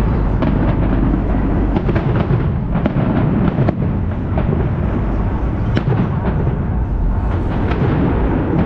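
Fireworks going off in rapid succession: a continuous low rumble of bangs, with many sharp cracks and crackles packed close together.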